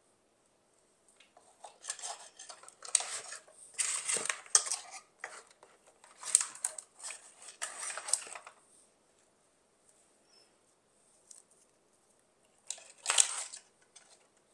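Dried bramble stems rustling and crackling as they are pushed in among gourds in a wooden bowl, in a run of scratchy bursts over several seconds and one more short burst near the end.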